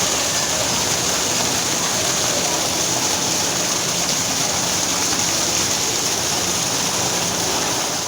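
Waterfall, a steady loud rush of falling water with a bright hiss.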